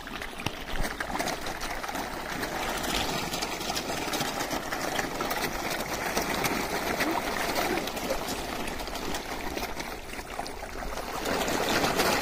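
Water splashing and churning steadily as a dense shoal of fish thrashes at the surface, competing for thrown food.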